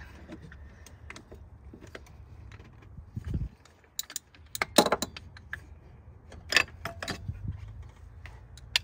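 Hands handling metal parts in a car's engine bay: scattered, irregular small clicks and clinks, with a soft low thump a little after three seconds in and the loudest cluster of clinks near five seconds.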